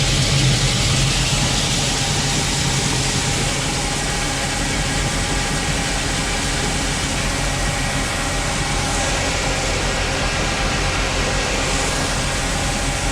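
A truck's engine running steadily under a continuous loud rushing noise from the grain-unloading setup, with shelled corn pouring from the raised dump bed into the pit and the grain elevator running.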